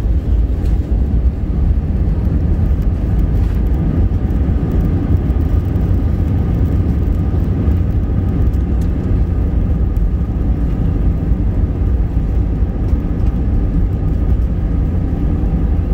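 Cabin noise inside an Airbus A320 over the wing during the landing rollout: a loud, steady low rumble from the wheels and engines, with a faint engine whine on a few steady pitches.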